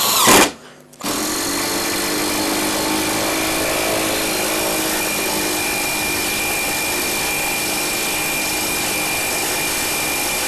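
Parkside cordless impact driver running under load, driving a long hex-head screw through a 13 mm socket into a wooden beam. A short burst at the start is followed by a brief pause, then it runs steadily from about a second in.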